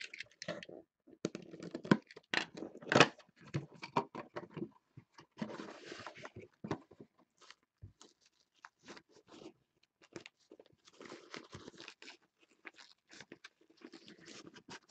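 Handling of packaging: a small cardboard box being opened, with clicks, scrapes and crinkling, loudest in the first few seconds. It then gives way to softer rustling as a cloth drawstring bag is handled.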